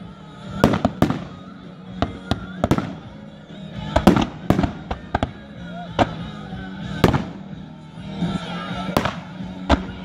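Aerial fireworks going off in quick succession: about fifteen sharp bangs at uneven intervals, bunched most tightly around four to five seconds in.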